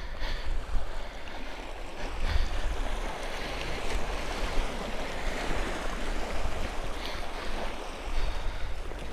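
Small waves washing onto a rocky shoreline, swelling louder around the middle, with wind rumbling on the microphone.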